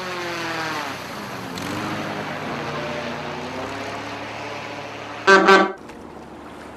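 A boat engine runs steadily, its pitch falling over the first second. About five seconds in comes a short horn toot in two quick pulses.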